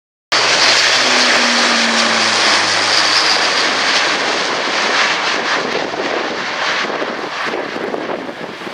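Airbus A400M's four turboprop engines running loud, cutting in suddenly and slowly fading as the aircraft draws away.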